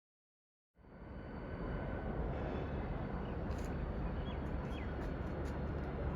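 Outdoor background rumble that cuts in after total silence about a second in and holds steady, with a few faint short chirps from a small bird in the middle.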